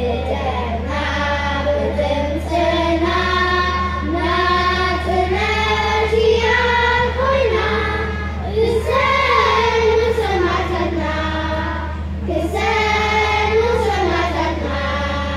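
A children's choir singing together in sung phrases of held notes with short breaks between them, over a steady low hum.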